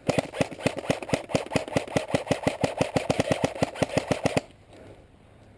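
Airsoft gun firing a rapid string of shots, about ten a second, in one long burst that stops about four and a half seconds in.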